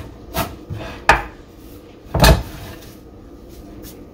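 Chef's knife chopping broccoli on a wooden cutting board: a few sharp knocks, then one heavier thump about two seconds in.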